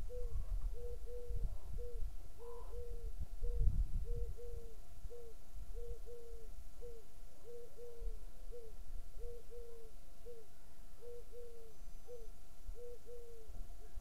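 Short, low hooting calls repeated about two a second without a break, some coming in quick pairs, from an animal calling out in the open country. Wind rumbles on the microphone near the start and again around four seconds in.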